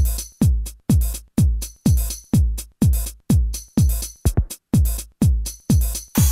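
Electronic music intro: a drum-machine kick drum on every beat, about two a second, with a bright hi-hat-like hit on about every other beat and a quick double hit a little past halfway.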